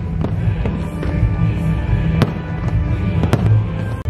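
Aerial fireworks bursting in a few sharp bangs, the loudest about two and three seconds in, over background music.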